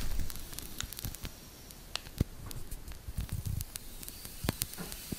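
A thin packaging wrapper being handled and opened by hand: scattered rustles and crinkles with small clicks, and a few soft knocks near the middle.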